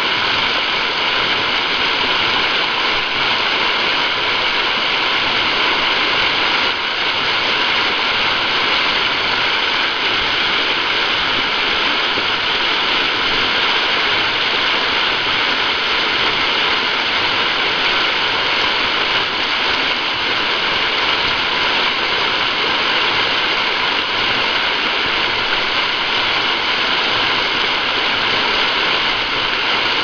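Fast-flowing creek rushing over rocks: a steady, loud wash of white water.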